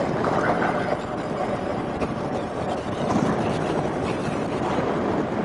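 Steady wind rush and running noise of a BMW R1200GS Adventure motorcycle under way, its flat-twin engine running beneath the wind.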